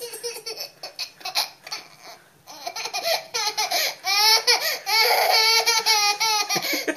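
Toddler laughing in repeated high-pitched bouts, soft and choppy at first and louder from about halfway through.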